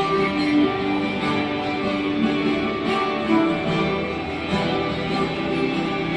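Ukulele picked with a plectrum, playing a melody of held and moving single notes over a recorded backing track, amplified through a small portable amplifier.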